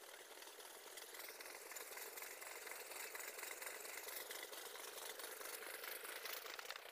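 Freight train of covered goods wagons rolling past, a steady fast rattle and clatter of wheels on the rails.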